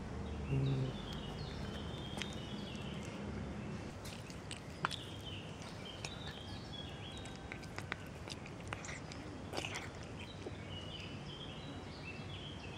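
A kitten chewing and crunching soft food from a plastic tub, with scattered small clicks. Small birds chirp in short runs of high notes in the background, and a brief low voice-like sound comes just after the start.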